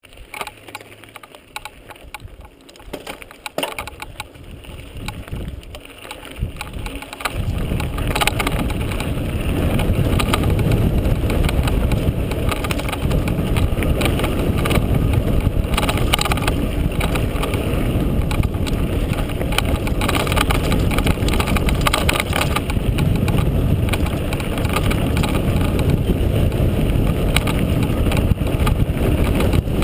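Mountain bike descending a dirt trail, heard from a camera riding on the bike: clicks and knocks of the bike over bumps at first, then from about seven seconds in a loud, steady rumble of wind on the microphone and tyre noise as speed builds.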